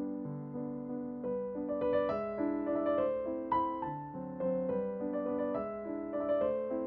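Gentle background piano music: single notes and chords struck one after another at an unhurried pace.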